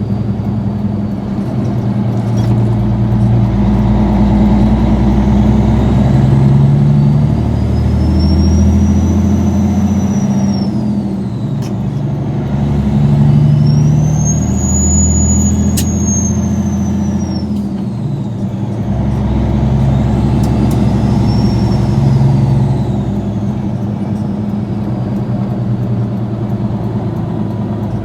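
Caterpillar 3406B inline-six turbo diesel running, its turbocharger whistling: a high whistle rises and falls three times as the engine's pitch climbs and drops, the last rise the shortest.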